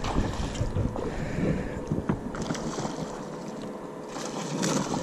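Wind buffeting the microphone over water sloshing around a small boat, with handling clicks, and a hooked redfish splashing at the surface beside the hull near the end.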